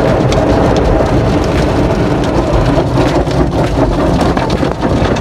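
Automatic car wash heard from inside the car's cabin: spinning cloth brushes slap and scrub against the body and glass while water sprays over the car. The result is a loud, steady rushing noise broken by many quick slaps.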